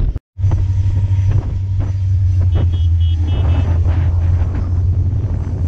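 Iron ore train running, heard from atop an open ore wagon: a loud, steady low rumble with scattered knocks, and a brief high squeal about halfway through.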